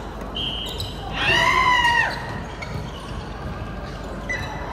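Indoor volleyball game: a loud, high-pitched squeal about a second long, starting about a second in and dropping in pitch at its end.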